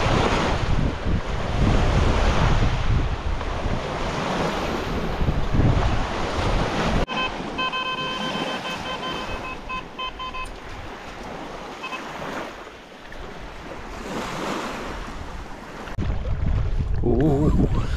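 Wind buffeting the microphone over waves on open water; the wind rumble eases for several seconds in the middle. About seven seconds in, a run of short electronic beeps sounds for a few seconds.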